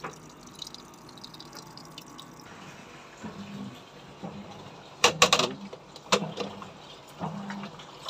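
Water running into the tub of an LG TurboDrum top-load washing machine during a test cycle, with short low motor hums about once a second from about three seconds in. A loud plastic clatter comes about five seconds in as the lid is lifted.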